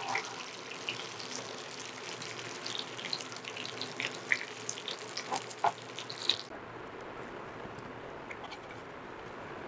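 Chicken pieces sizzling in shallow mustard oil in a nonstick pan that has just come off the heat, with scattered pops and spatula scrapes as they are turned. About six and a half seconds in, the sizzle cuts off to a quieter hiss with a few light clicks.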